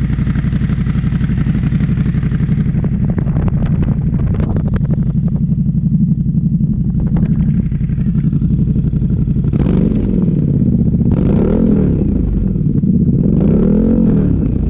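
CF Moto 800 EX engine through a custom exhaust with a carbon-fiber muffler, idling with a steady rapid pulse. About ten seconds in it is revved in several short blips, each rising and falling in pitch.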